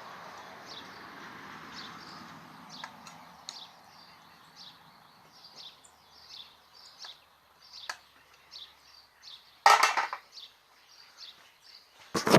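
A small bird chirping repeatedly, about two short high chirps a second, over a faint hiss. About ten seconds in comes one loud, brief burst of noise.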